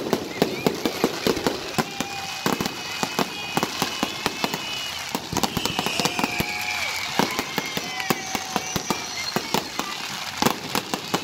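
Fireworks display at close range: a rapid run of sharp crackling pops and bangs. About halfway through, a high whistle falls slowly in pitch.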